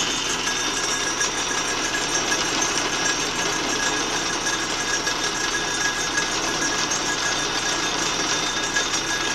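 Atlas lathe running steadily, its motor and change-gear train turning with the gear teeth meshing, set up for fine feed.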